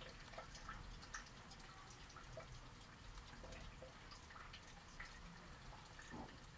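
Faint, irregular drips of rainwater, a few drops a second, over a low steady hum.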